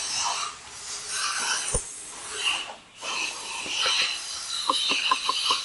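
Rasping as a piston-ring compressor band is tightened around a piston, then a run of quick light taps, about five a second, as a hammer handle drives the piston and rings through the compressor into a cylinder of a Hyundai D6DA diesel block.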